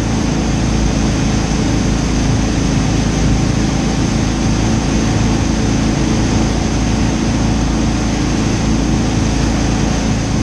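Wake boat under way: its inboard engine drones steadily beneath the loud rush of churning wake water and air.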